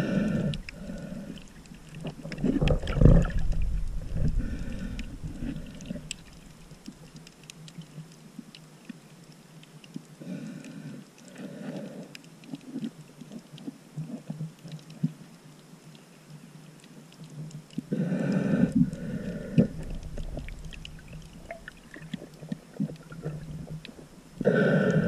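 A snorkeler breathing slowly through a snorkel, heard from a camera held underwater: a breath every six to eight seconds, each in two short pulses, with a low rumble of moving water about three seconds in.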